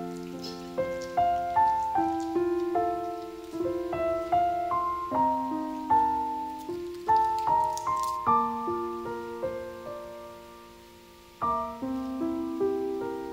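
Background piano music: a gentle melody of single notes and chords, one chord left to fade for about a second before the playing resumes.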